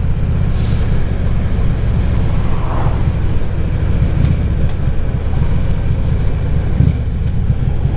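Harley-Davidson V-twin engine running steadily as the motorcycle cruises down the road, with a rush of wind and road noise over it.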